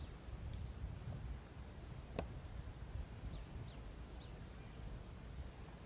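Quiet pasture ambience: a low steady rumble under a thin, steady high-pitched insect drone, with a few faint short bird chirps a little past the middle and one sharp click about two seconds in.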